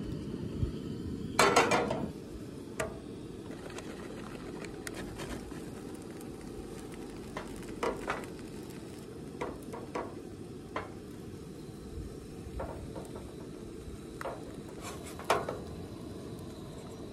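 Quesadillas frying in a nonstick pan on a Coleman two-burner propane camp stove, with the burner running steadily underneath. A metal utensil clinks and scrapes against the pan now and then as the quesadillas are turned, with a louder clatter about a second and a half in.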